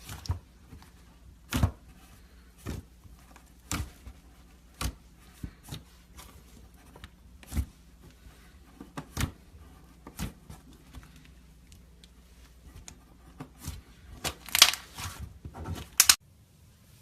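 Slime being pressed and stretched by hand, giving sharp sticky pops about once a second. Near the end comes a quicker run of crackling pops, which cuts off suddenly.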